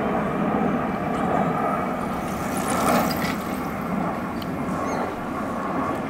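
Aeroplane flying overhead: the loud, steady drone of its engines.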